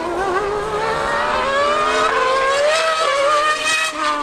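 High-revving racing engines of a 2013 V8 Formula One car and a Yamaha R1M superbike accelerating out of a corner, the pitch climbing steadily. Near the end the sound changes to a lower, falling pitch as a machine goes past.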